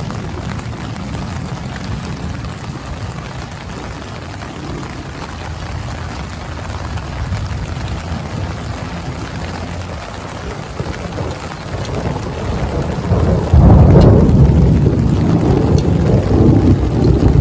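Steady rain, with a deep rumble of thunder that comes in suddenly about three-quarters of the way through and rolls on to near the end.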